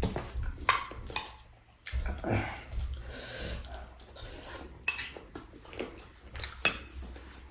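Cutlery and dishes clinking during a meal, a string of scattered sharp clicks and taps.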